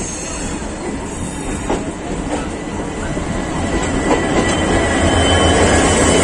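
Electric passenger train running over the rails, with wheel and rail clatter and a faint high whine, as a diesel locomotive passes close by on the next track. The noise grows louder from about four seconds in as the locomotive comes alongside.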